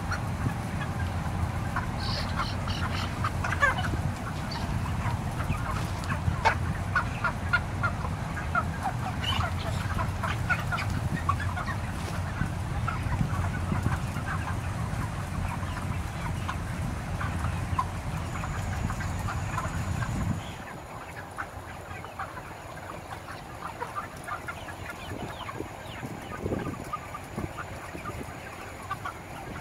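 A large flock of 35-day-old broiler chickens clucking and calling continuously, many short calls overlapping. Under them runs a steady low rumble that cuts off suddenly about two-thirds of the way through.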